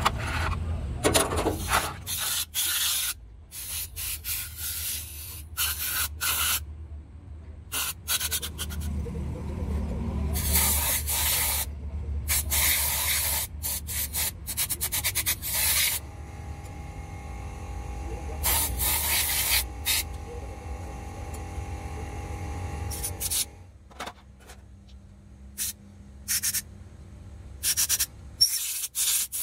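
Air-fed spray gun hissing in repeated bursts of varying length as hydraulic swing-motor pistons and springs are sprayed clean, over a low steady hum that stops near the end.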